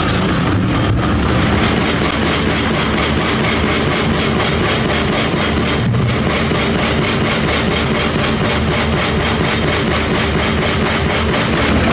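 Heavy earthmoving machinery's diesel engines running steadily under load, a dense drone with a fast, even pulse.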